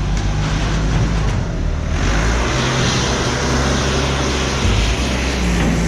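A motor vehicle's engine running steadily, with a rushing hiss that grows louder about two seconds in.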